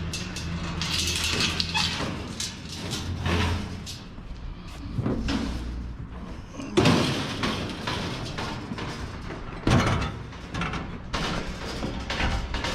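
A small metal clothes dryer being handled and loaded, with a series of knocks and bangs from its sheet-metal cabinet, the loudest about seven and ten seconds in. A vehicle engine idles steadily for the first few seconds.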